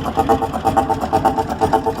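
Large engine running at a steady speed with an even, pulsing beat.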